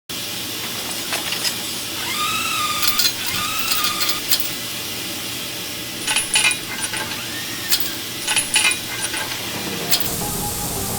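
Steady hiss of a leaking pressurised pipe, with scattered sharp metallic clicks and clanks. Two short squealing tones that rise and fall come about two seconds in.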